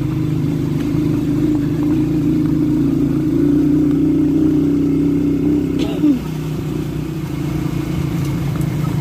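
Motorcycle engine running under way, a steady drone that climbs a little, then drops in pitch about six seconds in.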